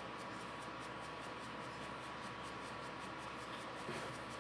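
Paintbrush bristles scratching paint onto fabric in quick, short repeated strokes, heard as faint scratchy ticks.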